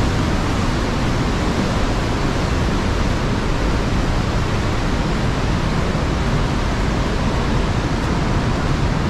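Steady, loud rush of a mountain stream through a narrow rock gorge, an even wash of white water with no breaks.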